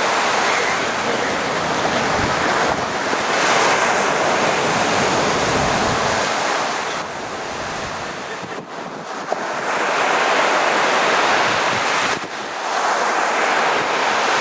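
Storm surf on a rough sea, waves breaking and washing onto the shore. It surges loudest twice, a few seconds in and again in the last third. Wind buffets the microphone through the first half.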